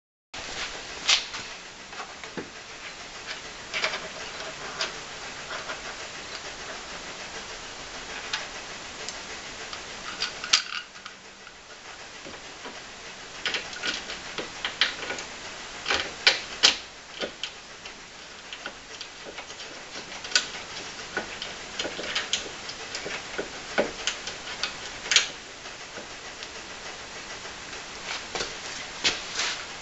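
Irregular clicks and metallic taps as a Hella Supertone horn and its bracket are handled and fitted against the car's front brace, some in quick clusters, over a steady hiss.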